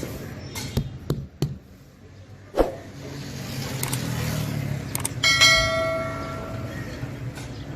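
A few sharp knocks, then a hard strike that leaves a clear metallic ringing tone fading over about a second and a half, over a low steady hum.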